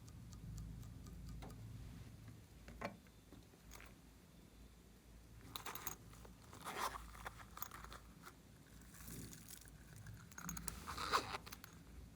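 Slime being worked by hand, giving faint scattered clicks and then two spells of crackling crunches, about halfway through and near the end.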